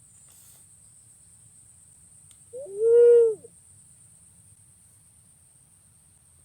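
Punai pink green pigeon call: a single drawn-out whistled note that rises and falls, lasting about a second, about three seconds in.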